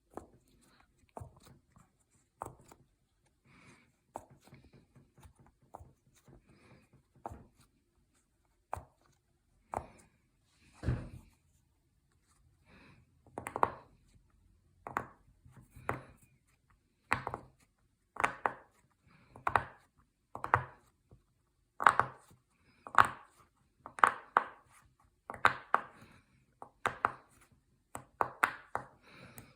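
Bubbles of silicone pop-it fidget toys being pressed: a run of short, sharp pops, faint and scattered at first, then louder and about one a second from roughly halfway through.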